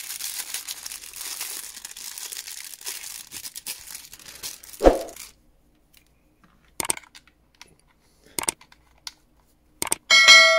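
Plastic wrapping crinkling and tearing as a handheld radio's antenna is unwrapped, ending with a thump about five seconds in. A few sharp clicks follow as the antenna is handled and fitted to the radio, and a bright bell-like ding rings near the end.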